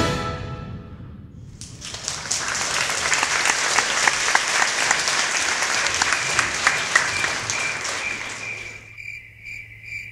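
Audience applauding, starting about a second and a half in and dying away near the end. A high, evenly pulsing chirp runs under the later part of the applause and is left on its own at the close.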